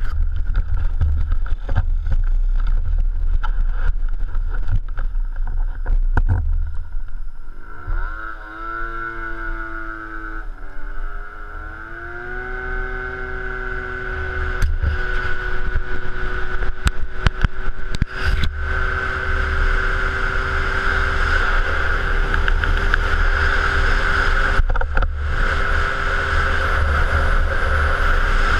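Peugeot Speedfight 2 scooter's two-stroke engine revving up as the scooter pulls away. Its whine climbs, dips briefly and then holds a steady high note while riding. Low wind rumble and knocks on the camera come before it, and wind rumble returns partway through.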